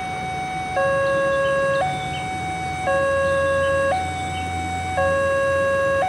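Level-crossing warning alarm sounding a two-tone electronic signal, a higher and a lower note alternating about once a second, warning of the approaching train. A low steady rumble runs underneath.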